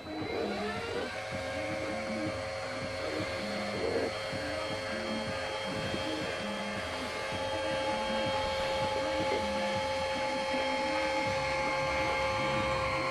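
Small electric hydraulic pump of a 1:14 scale RC hooklift chassis whining steadily while its brass hydraulic cylinder retracts and lowers the roll-off container onto the frame. The whine starts about a second in and stops at the very end.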